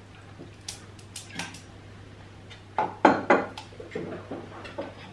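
Clinks and knocks of glass and metal as a liqueur bottle is poured into a metal cocktail shaker full of ice and then set down on the countertop, with scattered light clicks at first and the loudest knocks about three seconds in.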